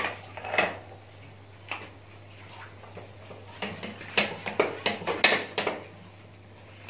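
Scattered knocks and rustles of hands working an air-pump hose into a cut in a slaughtered sheep's hind-leg skin, before inflating the skin to loosen it for skinning. A flurry of knocks comes in the second half, over a steady low hum.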